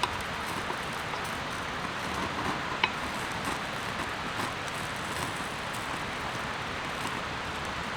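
Steady rain falling, an even hiss with scattered drop ticks and one sharper tick about three seconds in.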